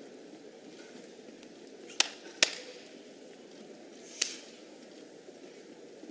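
Three sharp hand claps from sumo wrestlers squatting in the ring for the pre-bout ritual: two close together about two seconds in, a third about two seconds later. A low arena crowd murmur lies under them.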